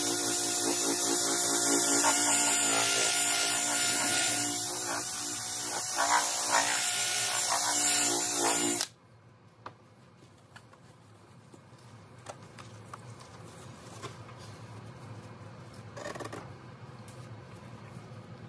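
Cordless drill spinning a foam polishing pad against a plastic light-bar lens, with a steady motor whine and the pad rubbing. It stops abruptly about nine seconds in, and faint wiping and handling sounds follow.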